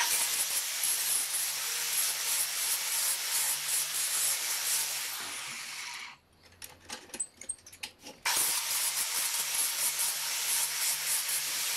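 Electric angle grinder with a thin cutting wheel slicing through 1-inch steel pipe held in locking pliers: a steady hiss of the cut over the motor's hum. About six seconds in it breaks off for roughly two seconds, leaving a few small clicks, then the cutting resumes.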